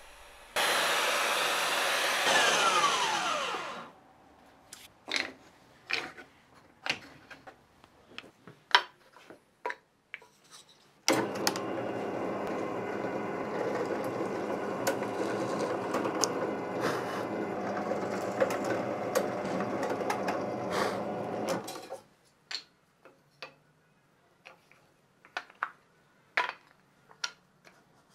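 A belt sander runs for about three seconds and then winds down, its pitch falling as it is switched off, followed by scattered light knocks. About eleven seconds in, a drill press starts and runs steadily for about eleven seconds while drilling into a small wooden block, then stops, and light clacks of small wooden blocks being handled follow.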